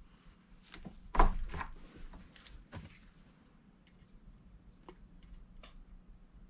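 Handling noises: a handful of separate knocks and clicks in the first three seconds, then only faint scattered ticks. No grinder is running.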